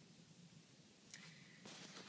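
Near silence: room tone, with a faint rustle near the end.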